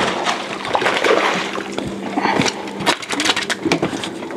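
A hooked black drum splashing at the water's surface beside a fiberglass boat, then flopping on the deck with a run of quick slaps and knocks over the second half.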